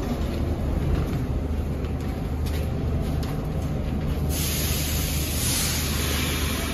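Subway train standing at the platform with a steady low hum. About four seconds in, a loud hiss starts suddenly and keeps going.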